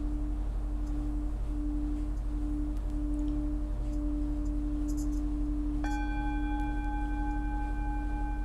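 A singing bowl sounding a low sustained tone that wavers in slow pulses, then steadies. About six seconds in, a sudden strike adds several higher ringing tones that hold on.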